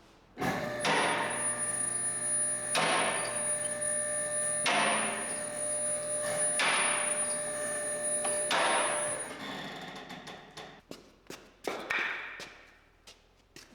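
A machine starts suddenly and runs steadily with a fixed whine for about nine seconds, with a regular knock about every two seconds. It then stops, followed by a few scattered knocks and clunks.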